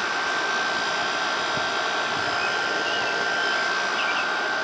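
Haier 5200 BTU window air conditioner running, its fan blowing a steady rush of air with a thin steady whine on top.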